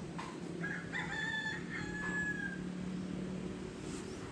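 A rooster crows once, starting about half a second in: a few short broken notes, then one long held note that fades out a little after two seconds. A steady low hum runs underneath.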